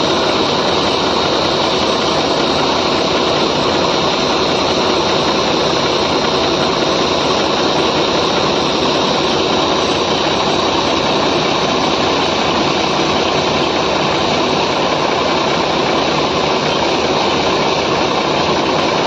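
Heavy construction-machine diesel engine running steadily, a loud, even drone with no revving or knocks.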